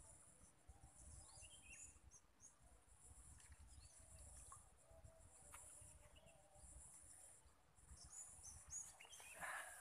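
Faint outdoor ambience: a steady high-pitched insect drone with scattered short bird chirps over a low rumble, and a brief rustle near the end.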